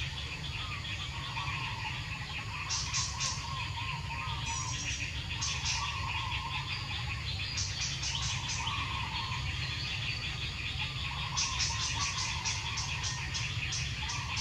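Outdoor wildlife sounds: warbling bird calls and trains of rapid, high chirps that come in groups a few seconds apart, then run almost without a break near the end, over a steady low rumble.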